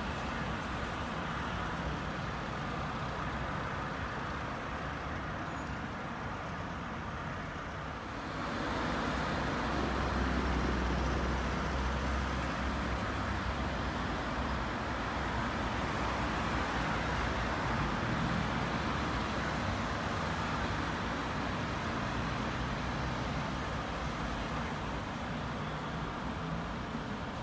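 Steady city road-traffic noise: a continuous hiss and rumble of passing cars. About eight seconds in it swells louder, with a deep low rumble for a few seconds, then settles into a steady wash.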